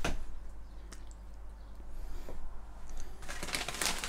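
Packaging being handled: plastic antistatic component bags and a padded paper envelope rustling and crinkling, with a few faint clicks at first and a busier crackle of rustles about three seconds in. A low steady hum sits underneath.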